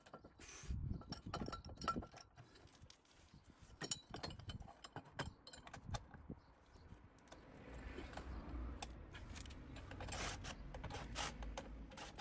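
Faint, scattered clicks, clinks and scrapes of metal parts being handled: bolts and a metal bracket being fitted by hand against a vehicle's rear cross member.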